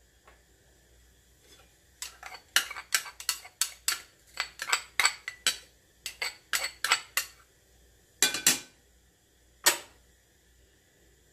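Glass prep bowl knocked against the rim of a ceramic mixing bowl, a quick run of sharp clinks about three or four a second, to shake chopped green onion out of it. A couple of louder knocks of dishes being set down follow near the end.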